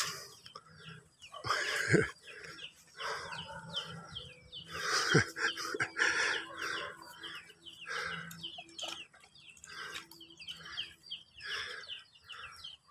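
Chickens clucking and small birds chirping in a busy, irregular run of short calls.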